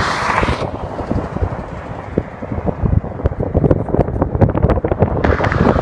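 Wind buffeting the microphone over freeway traffic noise. The traffic rush drops away about a second in and swells back near the end.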